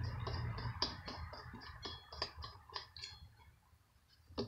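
Husqvarna 150BT's 50cc two-stroke engine turned over by hand with its pull starter during a compression check. It gives a run of light clicks, quick at first, then slowing and fading out as it coasts to a stop.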